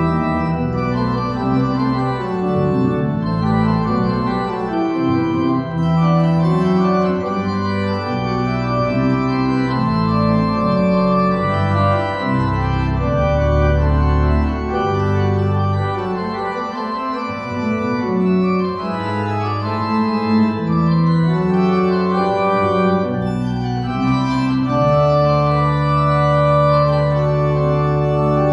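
Organ playing a slow piece of held chords over a moving bass line, the chords changing about every second, settling on a long sustained chord near the end.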